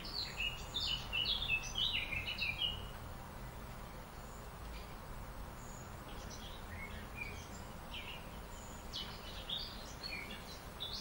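Small birds chirping in quick, short notes: a busy flurry in the first few seconds, then scattered calls that pick up again near the end, over a steady low background hum of outdoor noise.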